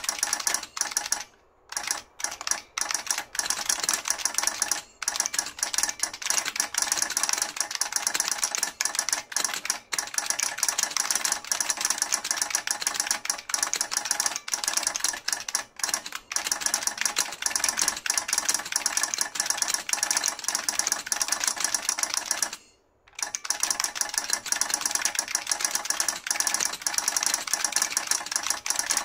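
New Model F F77 buckling-spring keyboard typed on quickly and continuously, each keystroke clicking together with its solenoid clicker. The typing breaks off briefly about a second and a half in and again about three-quarters of the way through.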